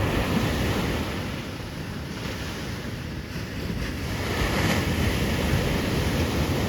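Wind buffeting the microphone over the steady wash of ocean surf, dipping slightly a couple of seconds in.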